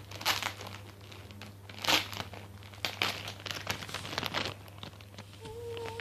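Crinkling and rustling as squishy toys are rummaged through and picked up by hand, in irregular crackly bursts, the loudest about two seconds in.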